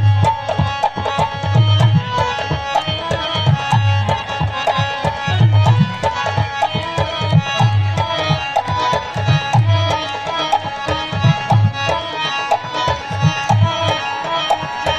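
Dholak played solo in fast, dense strokes with deep bass thumps, over a harmonium melody.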